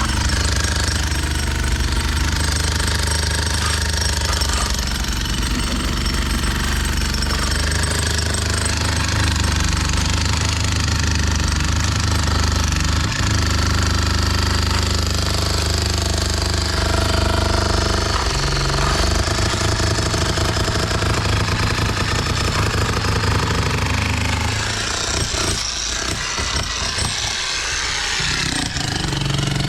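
Heavy construction machinery running steadily, an engine with a dense mechanical rattle; the sound dips and changes pitch near the end.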